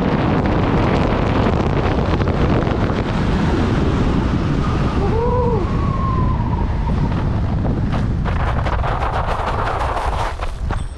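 Wind buffeting the camera microphone during a skydive: a loud, steady rush of air. It thins toward the end into irregular fluttering clicks, with a brief rising-and-falling tone about halfway through.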